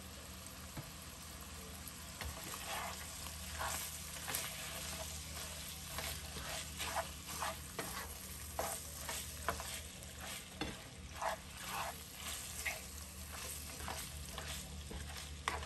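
Ground pork frying quietly in a nonstick pan, with a spatula scraping and breaking up the meat in quick, irregular strokes from about two seconds in.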